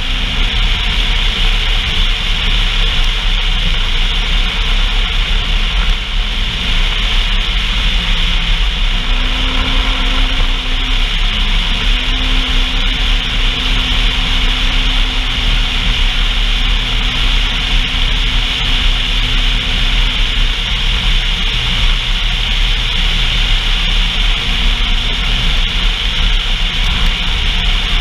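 Off-road vehicle under way: steady engine drone with heavy rumble and hissing wind and road noise. A faint engine tone comes in about a third of the way through, dips briefly, and fades out later.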